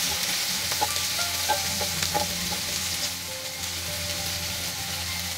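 Chopped onions and green chillies sizzling steadily in hot oil with cumin and mustard seeds in a nonstick pan. A spatula scrapes and taps against the pan now and then as they are stirred.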